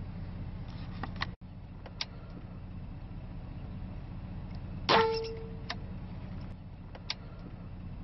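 Benjamin Marauder .22 pre-charged pneumatic air rifle firing once about five seconds in: a sharp crack followed by a short metallic ring. A few faint clicks and a steady low hum lie underneath.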